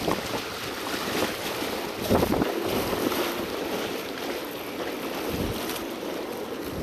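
Wind and water ambience: a steady hiss with wind gusting on the microphone about two seconds in and again about five and a half seconds in.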